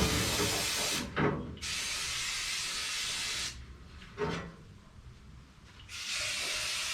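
Aerosol brake cleaner sprayed onto a valve cover to degrease it: three bursts of hiss, the middle one the longest at about two seconds.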